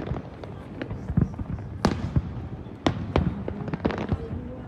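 Fireworks display going off: a rapid, irregular string of sharp bangs and crackles, with two louder bangs about two and three seconds in.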